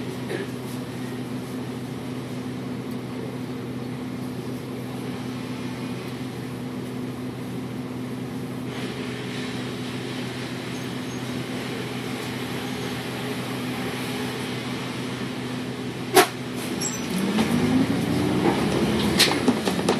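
Double-decker bus's diesel engine idling steadily while the bus stands waiting, heard from the top deck. A sharp knock comes about sixteen seconds in, then the engine revs up as the bus pulls away near the end, its pitch rising and then falling.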